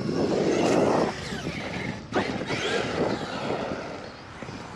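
Electric RC car running on rough ground: its brushless motor whines up and down in pitch over tyre and surface noise. It is loudest in the first second and surges again suddenly at about two seconds.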